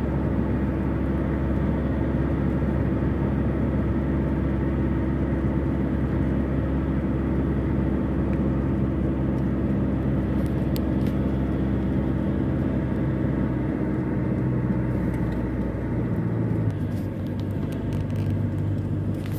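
Car engine and road noise heard from inside the cabin while driving: a steady low hum that changes note about sixteen seconds in.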